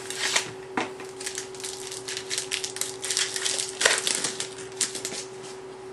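Foil wrapper of a Bowman Sterling football card pack crinkling and tearing as it is pulled open by hand. It makes a run of irregular crackles, with one sharper rip about four seconds in.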